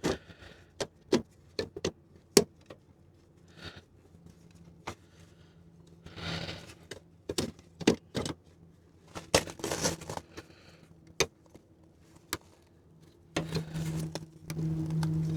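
Scattered sharp clicks and light rattles of hands working an LED headlight bulb and its retaining pieces into the headlight housing. A low steady hum comes in near the end.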